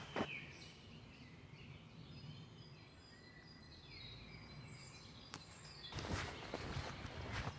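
Small birds chirping faintly in short high notes, several overlapping. About six seconds in, a louder run of rustling and scuffing noises starts up.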